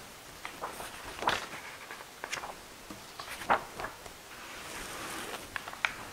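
Light knocks and taps from handling a chalice, missal and altar cloth on an altar, with some rustling. There are about eight short taps, the two loudest about a second in and halfway through, over faint room hiss.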